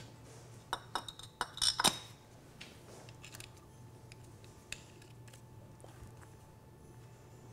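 Metal lid of a Mercedes 300SD power steering fluid reservoir clinking as it is set down over the filter spring: a cluster of sharp metallic clinks in the first two seconds, then a few faint ticks as the wing nut is turned down by hand.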